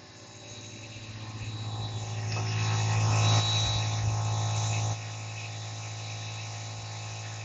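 A Puma 12-volt 3/4 hp air compressor runs under load with a steady electric hum. Over about three seconds it grows louder and hissier, then drops suddenly to a quieter steady hum about five seconds in.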